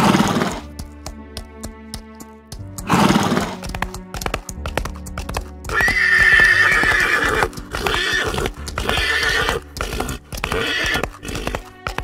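Horse neighing and whinnying several times, the longest whinny about six seconds in, with hoofbeats, over background music.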